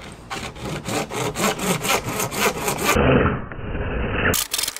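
Hand saw cutting through 1¼-inch schedule 40 PVC pipe, the teeth rasping through the plastic in quick back-and-forth strokes.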